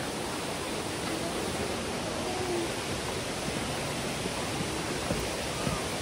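Waterfall rushing steadily: an even, constant roar of falling water.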